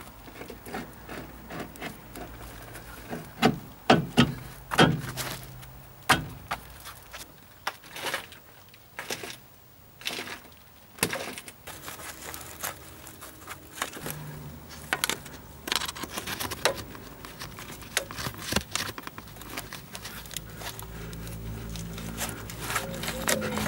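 Irregular clicks, knocks and clinks of hand tools and metal parts on a car's front suspension as the lower ball joint is refitted into the hub carrier.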